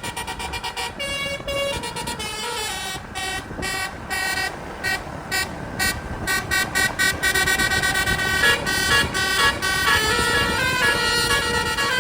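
Bus telolet horn, a multi-trumpet musical air horn, playing a jumpy tune of stepped notes: short chopped honks at first and in the middle, then held notes changing several times a second and a little louder from about seven seconds in, over the rumble of traffic.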